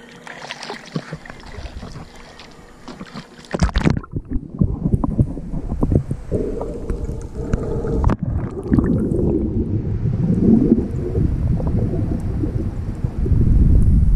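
Water splashing and lapping at the surface close to the microphone, then about four seconds in the camera goes under and the sound turns to a muffled underwater rumble and gurgling from the swimmer's movement, growing louder near the end.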